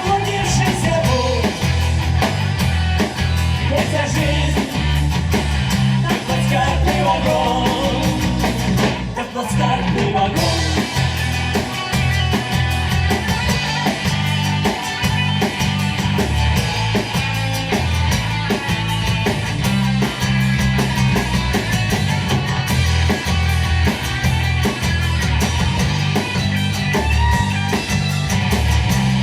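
Live rock band playing an instrumental section: guitars over bass guitar and drums.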